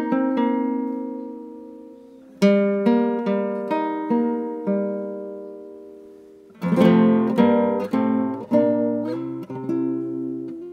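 Nylon-string acoustic guitar (violão) played solo. Plucked notes and chords ring out and fade, then a busier run of chords comes in about six and a half seconds in.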